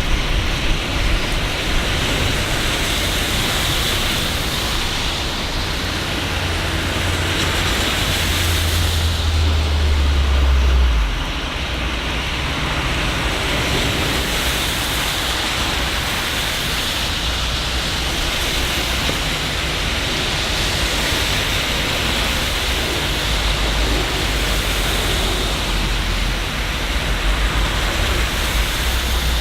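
Steady rain, a continuous hiss. A low rumble swells and then cuts off about a third of the way in.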